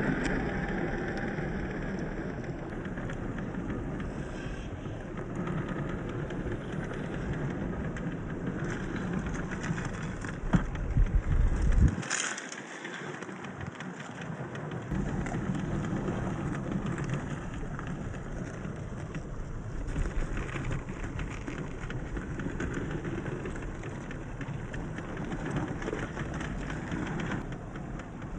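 A 1/10-scale Axial SCX10 III RC crawler driving off-road: steady rolling and drivetrain noise with crackling from the tyres over rough ground, louder for a moment about ten seconds in.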